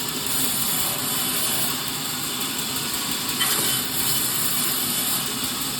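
Firewood-cutting machinery running steadily, a continuous mechanical noise, with a brief sharper knock about three and a half seconds in.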